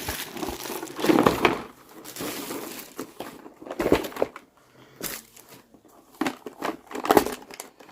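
Packaging being handled and opened by hand: irregular bursts of crinkling and rustling of cardboard and plastic, with small clicks.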